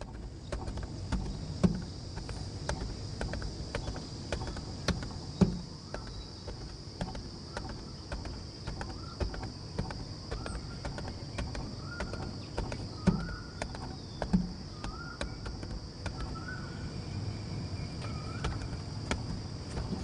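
Irregular light taps and a few duller thumps as a cylindrical engine air filter element is knocked and handled against a steel plate to shake the dust out. A steady high insect drone runs underneath, and in the second half a bird repeats a short rising call about once a second.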